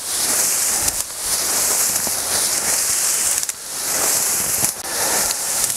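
Winter wheat stalks and ears rustling and crackling as someone wades through the standing crop, with the plants brushing close against the microphone. The rustle is continuous, with brief lulls about a second in and again past the middle.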